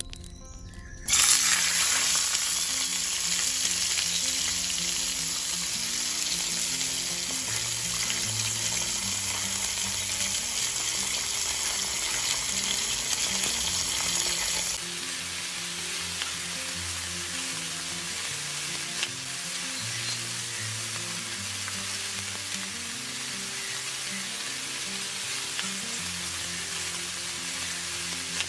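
Fish roe fritters deep-frying in a steel karahi of hot oil: a loud sizzle starts suddenly about a second in as the batter goes into the oil, and drops a little in level about halfway through.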